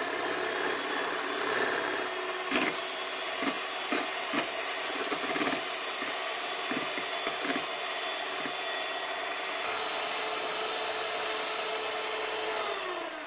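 Electric hand mixer running steadily, its whisk beaters whipping egg whites into meringue in a ceramic bowl, with the beaters now and then clicking against the bowl. Near the end the motor is switched off and its whine falls in pitch as it spins down.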